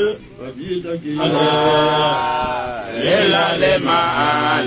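A man's voice chanting into a microphone, amplified: after a broken start it holds one long note for nearly two seconds, slides down, and goes on in drawn-out notes.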